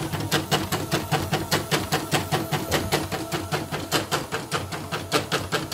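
Portable computerized embroidery machine, its covers off, stitching with a newly fitted drive motor: the needle bar strikes in an even rhythm of about five clicks a second over the low hum of the motor.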